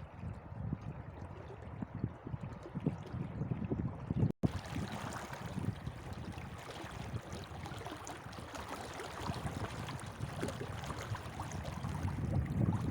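Running water, like a stream, as an even rushing noise. The sound cuts out for an instant about four seconds in and comes back brighter and hissier.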